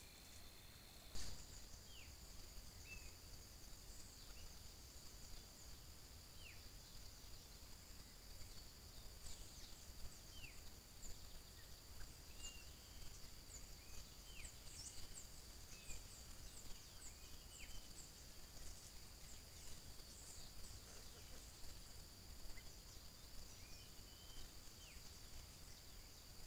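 Faint forest ambience at dawn: a steady high insect drone with scattered short, downward-sweeping bird chirps. A sharp click about a second in.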